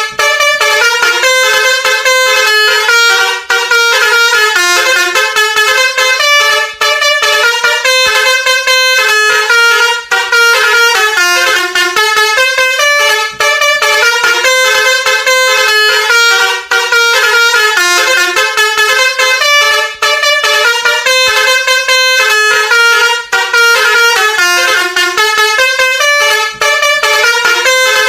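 Basuri V3 musical horn playing a fast melody of stepping tones. The same phrase repeats about every three seconds, with a brief break between repeats.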